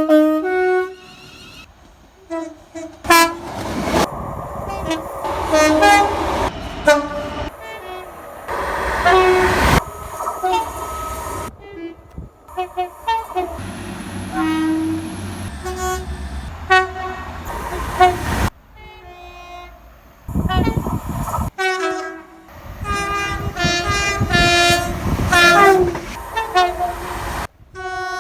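A series of train horn soundings, mostly two-tone horns giving short alternating high and low blasts, from one clip to the next with abrupt changes between them. Train running noise rumbles under and between some of the blasts.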